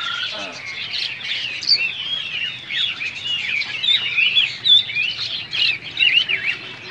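Many songbirds chirping and calling at once, a dense overlapping chatter of short, quick chirps and whistles.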